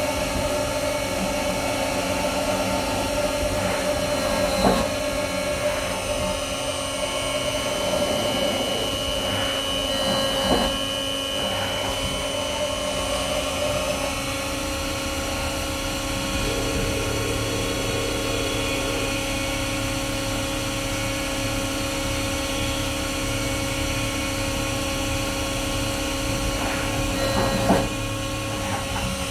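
CNC machine running, a steady whine made of several held tones over a noisy hum, with a few brief knocks about five, ten and twenty-eight seconds in.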